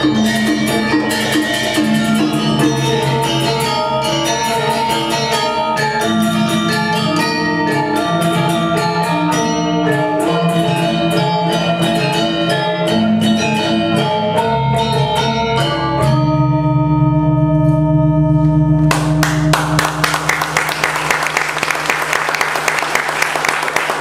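A pair of Balinese gamelan metallophones playing fast interlocking struck notes, ending about two-thirds of the way in on a final chord that rings out. Applause starts a few seconds later.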